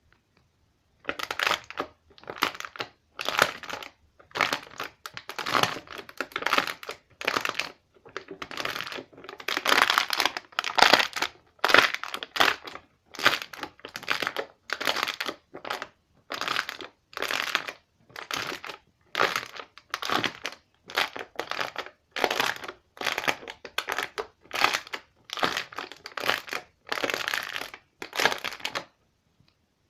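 Something soft being poked and pressed by hand over and over, each press a short noisy burst, about one to two a second.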